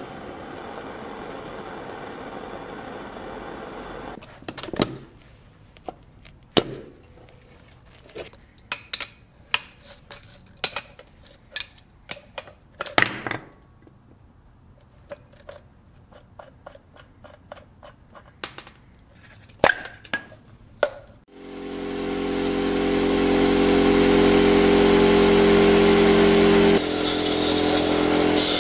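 A steady mechanical running noise stops about four seconds in. Scattered sharp metallic clinks and knocks of hand tools being handled follow. About three-quarters of the way through, a power tool motor spins up and runs steadily, with a change in its sound near the end.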